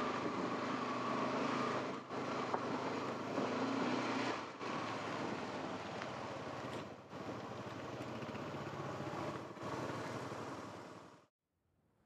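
Motorcycle engine running under way with wind and road noise, dipping briefly in level every two or three seconds. It cuts off abruptly near the end.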